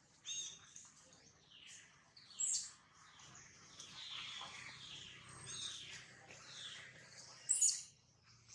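High-pitched animal calls, many short chirps and squeaky gliding notes overlapping one another, with a few louder calls near the start, a couple of seconds in and near the end.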